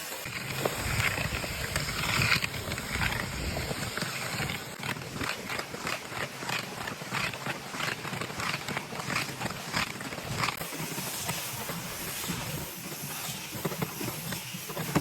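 Resin-bound stone aggregate being worked: repeated gritty scraping strokes, roughly one or two a second, over a steady rasping noise.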